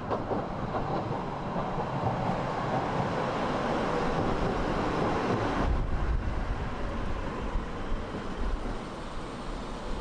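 Tram running in on its rails toward the platform, its rolling and wheel noise growing louder as it comes close. About six seconds in, as it draws alongside, the higher hiss drops away and a deeper rumble takes over.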